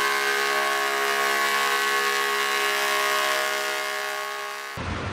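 Pulling truck's engine held at full throttle while dragging a weighted sled, a loud, steady drone at one even pitch. It cuts off suddenly near the end.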